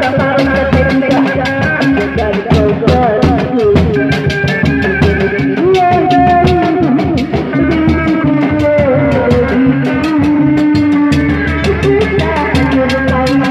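Sundanese reak ensemble playing: dog-dog frame drums and other percussion beat a fast, steady rhythm, with a tarompet (Sundanese shawm) playing a wavering, ornamented melody over it.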